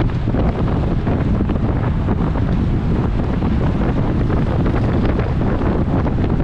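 Steady, loud wind noise buffeting the microphone of a bicycle-mounted onboard camera while riding at speed.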